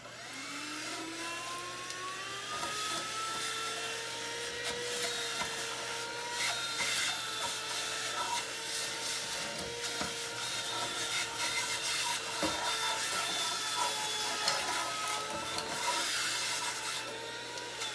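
Cordless handheld vacuum running with its long pointed crevice tool fitted. The motor whine rises in pitch as it comes up to speed over the first few seconds, then holds steady, with rubbing and scraping as the nozzle is worked over a chair.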